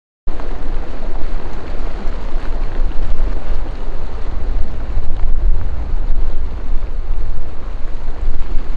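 Wind buffeting the microphone on a boat at sea, a steady heavy rumble over the wash of choppy water. It starts just after a brief gap at the very beginning.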